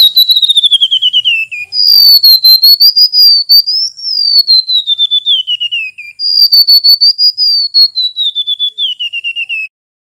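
A male sulingan mini (remetuk laut) songbird singing loud, clear whistled phrases, three in a row. Each phrase holds a high wavering whistle, then slides down into a rapid trill, the rolling 'ngeroll' song.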